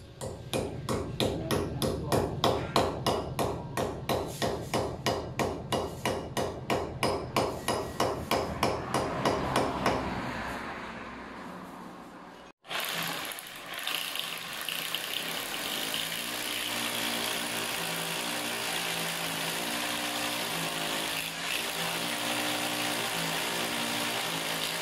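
Hammer striking against a concrete door column in a steady run of sharp blows, about three a second, for some ten seconds. After a break, a corded electric drill runs steadily, boring into concrete.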